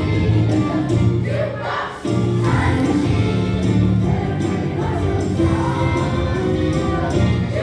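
Children's choir singing together over instrumental accompaniment with a steady bass line, with a brief break about two seconds in.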